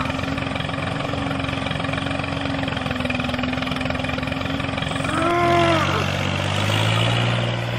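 Tractor engine sound effect running steadily. About five seconds in, a short pitched call rises and falls, and a deeper, steadier engine note takes over.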